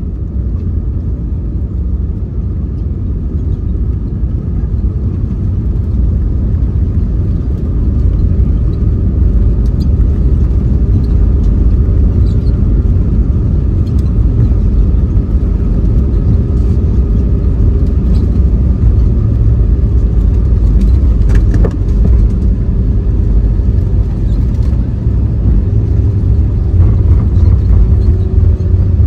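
Airbus A320neo with Pratt & Whitney geared turbofans on its landing rollout, heard from inside the cabin: a deep, steady rumble of the wheels and engines on the runway with the ground spoilers raised. It grows louder over the first eight seconds or so, then holds steady.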